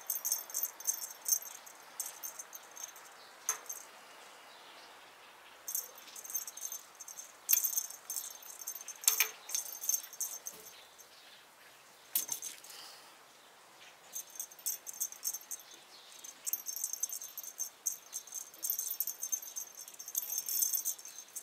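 Feathered cat wand toy rattling in bursts as it is jiggled and batted about, with a few sharp taps in between.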